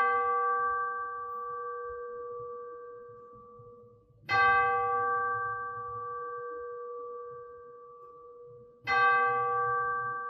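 A bell struck three times at the same pitch, about four and a half seconds apart, each stroke ringing on and slowly fading. It marks the start of worship.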